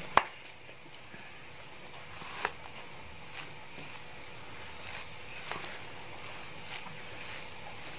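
Night insects chirping steadily in a high continuous drone, with one sharp click just after the start and a few fainter knocks later.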